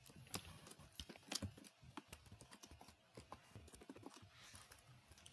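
Faint computer keyboard typing: irregular, quick key clicks, some in short runs.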